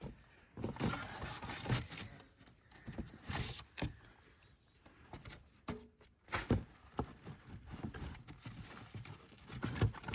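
Irregular knocks, taps and rustles of a griddle's cardboard box and packing being handled, mixed with puppies moving about on a hard surface.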